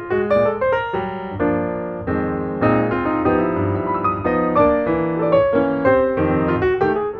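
Piano music with a quick succession of notes over chords.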